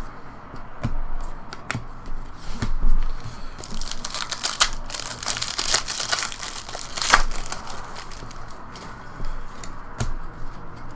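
Trading-card pack wrapper crinkling and tearing as a pack is ripped open, with cards being handled; the crinkling is densest in the middle.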